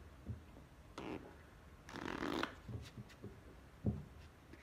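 A deck of playing cards being shuffled by hand: two short rustling rushes, about a second in and about two seconds in, with a few light taps of the cards between.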